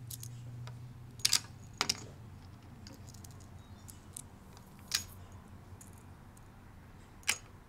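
Small metal bolts clicking and clinking as they are handled and set into the holes of a plastic scooter trunk base: four short sharp clicks spread out, over a low steady hum.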